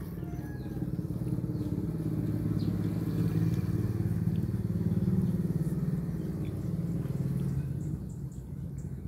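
A passing motor vehicle's engine: a low hum that grows louder toward the middle and fades about eight seconds in.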